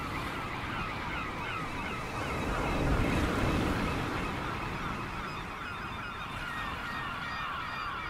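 Ambient electronic soundscape from a hardware synthesizer rig: a steady surf-like rush under many short, repeating gliding cries that sound like gulls or geese. It swells about three seconds in, then eases.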